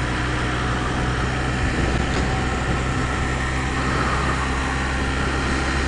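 Motorcycle engine running steadily, with no change in pitch or level.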